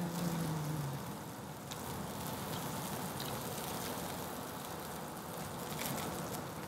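Steak sizzling on a small tabletop charcoal grill, a steady hiss with a few faint crackles. A short closed-mouth 'mmm' sounds in the first second.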